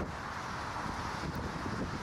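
Steady jet noise from an airliner's engines, strongest in a mid-pitched hiss, with wind buffeting the microphone as an uneven low rumble.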